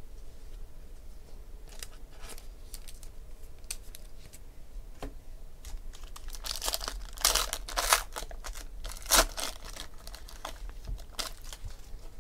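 A Panini Spectra football card pack's wrapper being torn open and crinkled by hand, with a cluster of loud crackling rips about halfway through. Light ticks of handling come before and after.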